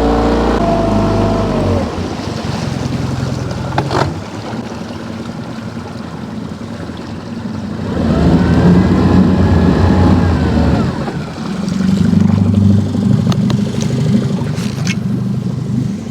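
A boat's motor running: it eases off about two seconds in, is revved up and back down between about eight and eleven seconds, then runs steadily at low speed, the usual way of holding the boat's position in the current. A single sharp knock about four seconds in.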